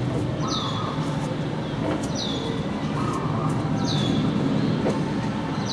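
A bird calling over and over: a short high whistle that falls in pitch, about every one and a half seconds, over a steady low rumble.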